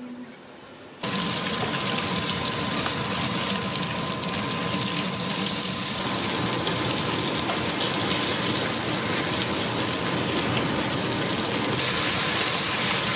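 Crabs and then sliced vegetables stir-frying in a hot wok: a steady, loud sizzle that starts abruptly about a second in.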